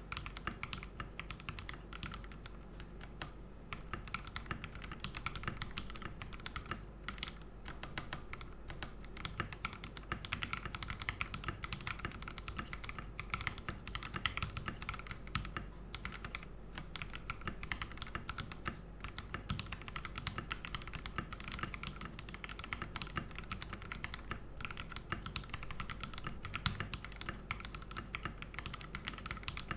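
Steady fast typing on a GMMK Pro 75% mechanical keyboard with an aluminium plate, thin PE case foam, PBT keycaps and lubed linear Frankenswitches (Konpeitou housings with Kailh Burgundy stems): dense, continuous key clacks.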